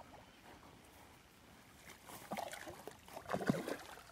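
A hooked carp thrashing at the surface of the water, splashing irregularly in the second half, loudest near the end.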